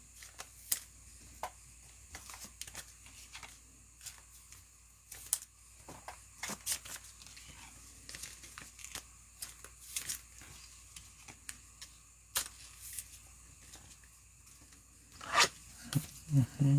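Trading card pack wrappers being torn open and crinkled, with scattered soft rustles and clicks as the cards are handled. A louder rip comes near the end.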